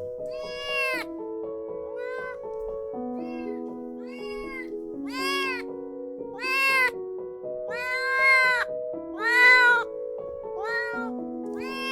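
A kitten meowing again and again, about a dozen arching calls that rise and fall in pitch, several of them long and loud, over background music of slow, held notes.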